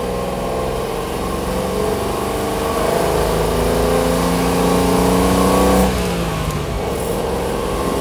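A 1963 Maserati 3500 GT Vignale Spyder's 3.5-litre Tipo 101 straight-six pulls on the road, its note rising steadily as the car accelerates. About six seconds in the revs fall away, and the engine then runs on steady, with wind and road noise over it.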